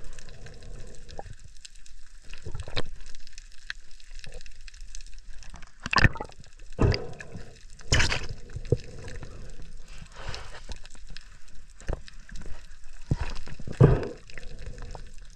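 Underwater sound through a submerged camera as a diver handles a speared fish: scattered clicks and water gurgling, with several louder brief sloshing bursts, the strongest about six, eight and fourteen seconds in.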